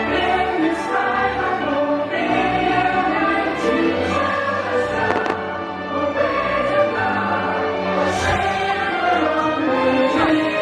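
Orchestral show music with a choir singing, the soundtrack of a fireworks show.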